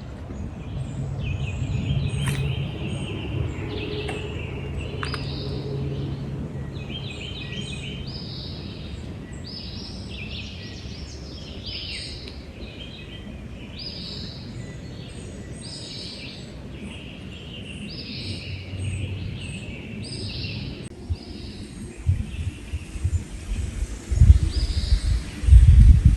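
Birds singing, short chirping phrases repeated about once a second over a steady low background noise outdoors. Near the end, loud irregular low rumbling bumps.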